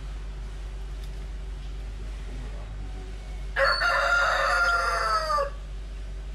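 A bird calling once, a single loud call of about two seconds that drops in pitch at the end, a little past halfway through.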